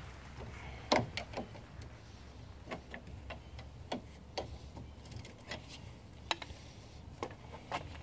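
Scattered sharp metallic clicks and ticks, irregularly spaced, from a hand tool working the hub-assembly bolts behind the steering knuckle of a car's front wheel; the loudest click comes about a second in.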